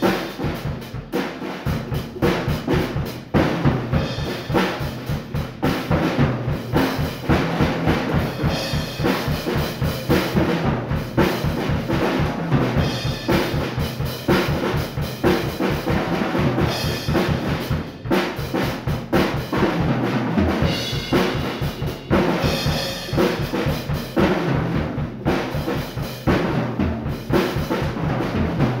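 Rebel drum kit played freestyle: a steady stream of bass drum, snare and tom hits under cymbals, with fills.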